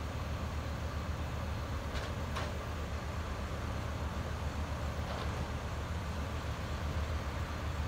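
Steady low rumble of a truck engine running, with a few faint clicks about two seconds in and again around five seconds.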